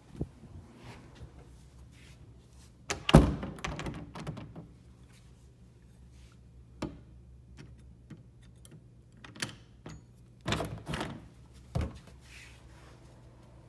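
Interior door with a lever handle being worked: one loud thunk about three seconds in, a few small clicks, then a quick run of knocks near the end.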